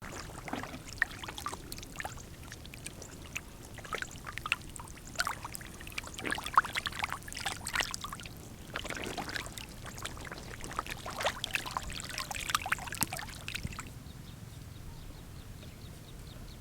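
Shallow water splashing and sloshing in many short, irregular splashes, which die away about fourteen seconds in, leaving a faint steady hiss.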